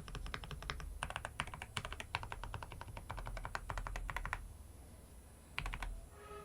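Typing on a mechanical keyboard fitted with stock, factory-lubed Akko Rosewood linear switches: quick runs of keystrokes with a deep sound, easing off about four and a half seconds in, then a few more strokes near the end. A slight ping and scratchiness come through, which are put down to uneven factory lubing.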